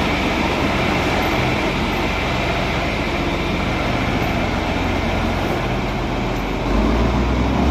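John Deere 4520 tractor's six-cylinder turbocharged diesel engine running steadily as the tractor pulls slowly out of the shop, getting louder about seven seconds in.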